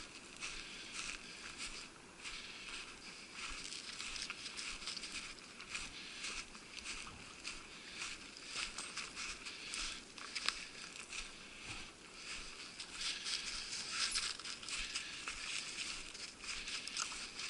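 Footsteps crunching through snow at a walking pace, with dry weed stalks and twigs brushing and rustling against clothing.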